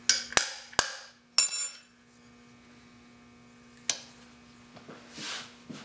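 Metal clicks and clinks from handling a steel chisel-sharpening jig and a small wrench: three sharp clicks in the first second, then a ringing metallic clink about a second and a half in, and one more click near four seconds.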